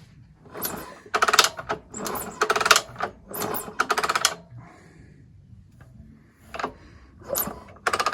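Honda TLR200 single-cylinder four-stroke kicked over about five times in quick succession, each kick a burst of fast mechanical clicking as the engine turns over without firing. A few single sharp clicks follow near the end.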